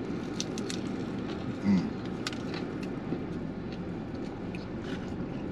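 Steady low rumble of street traffic, with small clicks and a short "mm" hum of enjoyment about a second and a half in from a man chewing a brisket sandwich.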